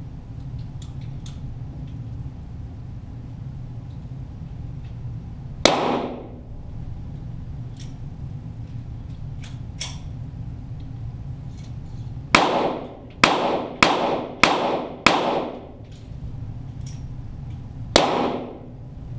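.22 Walther GSP target pistol shots heard from near the target, each with a short echo off the range walls. There is a single shot, then after a pause a quick string of five about half a second apart, then one more shot near the end, over a steady low hum.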